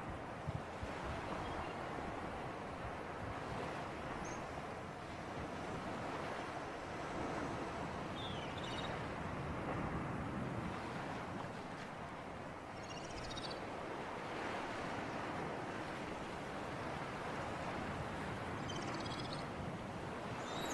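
Steady rush of sea surf and breeze, with a few short, high bird chirps breaking through now and then.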